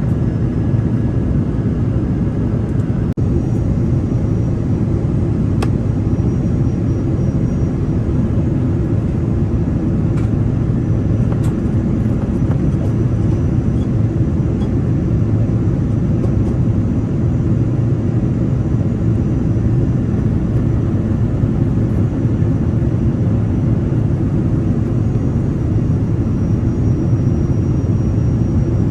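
Steady low rumble of airflow and Rolls-Royce Trent 700 engines inside the cabin of an Airbus A330-300 during descent, with a few faint clicks.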